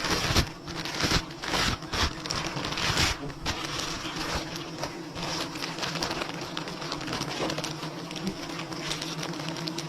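Swarm of wild honeybees buzzing steadily around their nest, with loud rustling, crackling bursts during the first three seconds or so.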